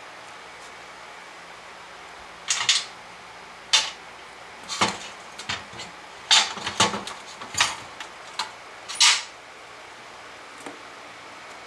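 Small metal parts clinking and clacking as they are handled and set down on a workbench: about a dozen sharp knocks in irregular clusters over a steady background hum.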